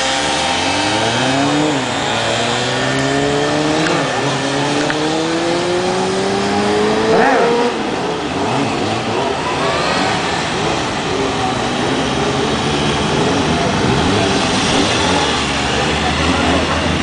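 Motorcycle engines revving hard during stunt riding. One engine's pitch climbs steadily and drops back three times in the first seven seconds or so, then several bikes run and rev together in a more tangled sound.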